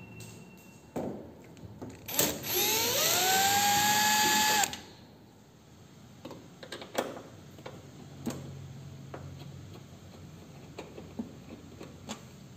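Cordless power drill/driver spinning up quickly to a steady whine for about two and a half seconds, then stopping abruptly, followed by scattered light clicks and knocks of parts and screws being handled.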